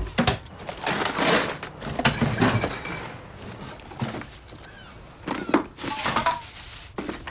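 A string of loud crashes and clatters in separate bursts, like household objects being knocked about and thrown in a hurry.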